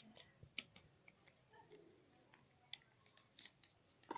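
A few faint, scattered clicks and light taps of small objects being handled, typical of a phone and its accessories being set down and picked up while unboxing.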